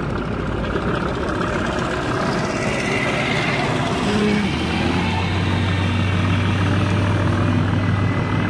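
A heavy engine running steadily, its low drone growing stronger about five seconds in.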